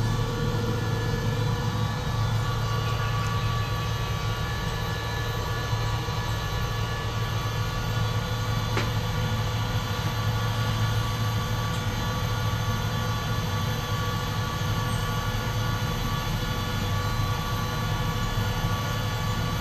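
Steady drone inside a moving cable car cabin: a low hum with faint steady tones above it. There is a faint tick about nine seconds in.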